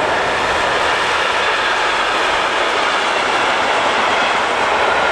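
Container freight train rolling past, its wagons making a steady, unbroken noise of wheels on rails.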